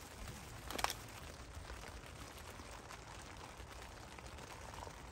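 Hot water poured from a kettle into a drip coffee bag on a metal mug near the end, after a single light clink about a second in, over a steady hiss of rain.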